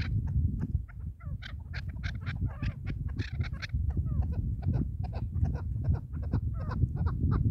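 Chukar partridges calling from wire decoy cages: a rapid, continuous run of short notes, several birds overlapping, with wind rumbling on the microphone underneath.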